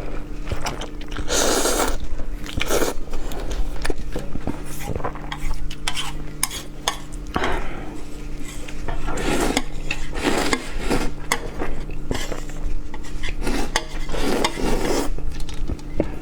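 Someone eating spicy instant noodles: utensils clicking and scraping against the bowl, with several short noisy bursts, likely slurps, over a steady low hum.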